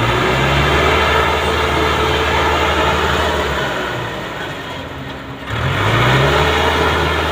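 Sonalika DI 60 RX tractor's diesel engine revving hard under load as it climbs over a dirt mound. It eases off about halfway through, then revs up again sharply about five and a half seconds in.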